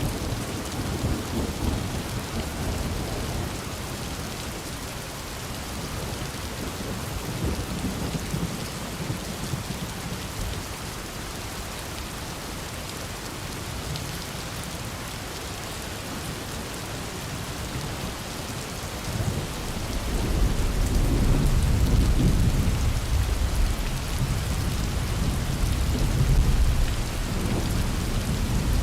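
Steady heavy rain with rumbling thunder: a low roll of thunder fades over the first few seconds, and a louder, longer rumble builds about two-thirds of the way through and rolls on to near the end.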